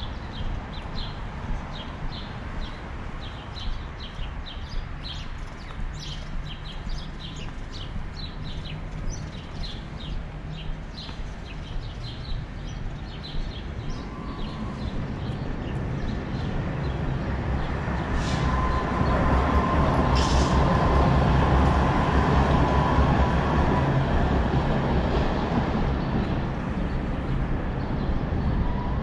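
Footsteps clicking on pavement, about two to three a second, then a tram rumbling past, getting louder from about halfway with a steady whine over the rumble.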